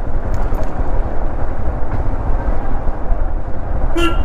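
Royal Enfield Himalayan's single-cylinder engine running steadily under way on its stock exhaust, with road and wind noise. A short beep near the end.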